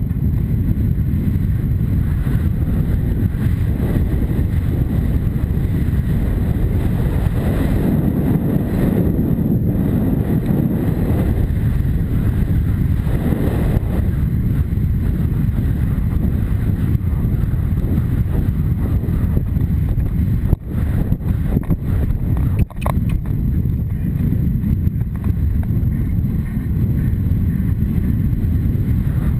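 Wind buffeting a helmet camera's microphone as a horse gallops cross-country, a loud, steady low rumble. Two brief sharp knocks come about two seconds apart roughly two-thirds of the way through.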